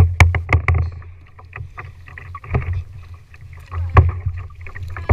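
Kayak paddling: the double-bladed paddle's strokes give sharp clicks and splashes, several in quick succession in the first second and single ones later, over a steady low rumble of water against the plastic hull.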